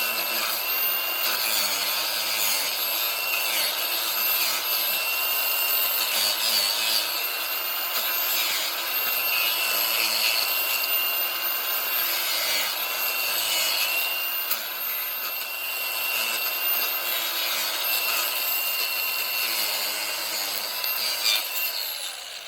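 Angle grinder with a Saker chain-saw-tooth disc running and cutting into lilac wood: a steady high whine over a rough sawing rasp, the pitch dipping briefly now and then as the chain bites. It winds down near the end.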